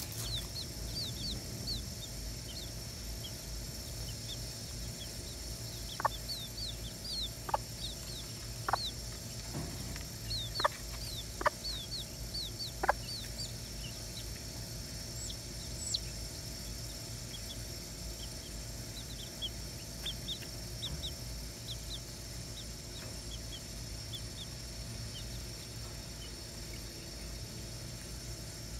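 Three-week-old bantam chicks peeping in many short, high, falling chirps, with about six sharp taps between roughly six and thirteen seconds in.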